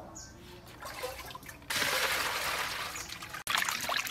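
Water poured into a stainless-steel bowl: a steady rushing splash that starts and stops suddenly and lasts a little under two seconds. After it come quieter sloshing and splashing as hands wash squid in the water.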